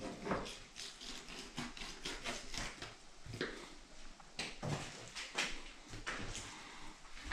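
Irregular scrapes and taps as a fillet knife cuts the skin off a northern pike fillet on a tabletop and the pieces are handled.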